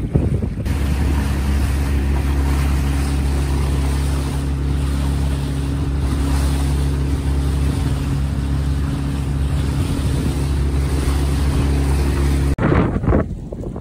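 Small boat's engine running at a steady speed, with water and wind rushing past. Near the end it cuts abruptly to gusts of wind on the microphone.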